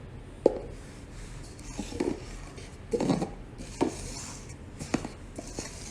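A few light, scattered knocks and clatters, about five in as many seconds, over a low room hum.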